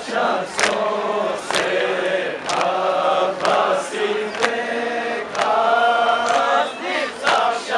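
A group of men chanting a Balti noha in unison, with sharp hand strikes of matam (chest-beating) about once a second keeping the beat.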